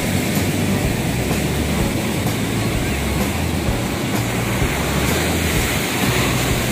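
Ocean surf breaking and washing up a sandy beach, a steady loud rushing.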